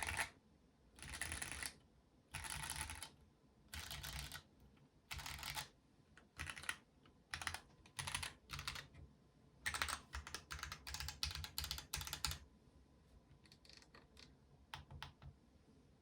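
Typing on a Keebmonkey WK870 mechanical keyboard: stock Gateron CJ switches under GMK Striker R2 keycaps on a polycarbonate gasket-mount plate with plate foam, in an aluminium case. It types in short bursts of rapid keystrokes, thickest about two-thirds of the way through, then tapers off to a few light taps near the end.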